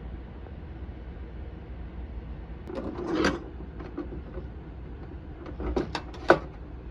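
A few handling noises: a short scrape about three seconds in, then several knocks and clicks near the end, one sharp click the loudest.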